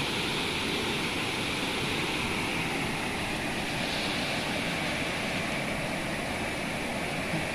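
Steady outdoor rushing noise, even and unbroken, with no distinct knocks or voices.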